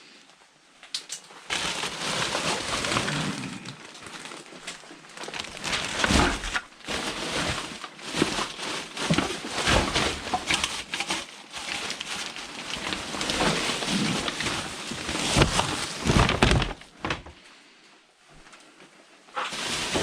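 Rustling, crackling and knocking of rubbish being rummaged through by hand, starting about a second and a half in and dying away near the end.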